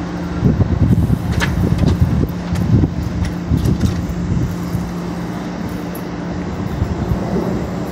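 Nippon Sharyo light-rail train standing at a platform with its doors open, its onboard equipment giving a steady low hum. Irregular low rumbles come and go over it, mostly in the first half.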